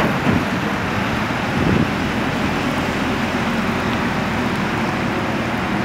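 JLG 1255 telehandler's diesel engine running steadily while the boom is raised hydraulically.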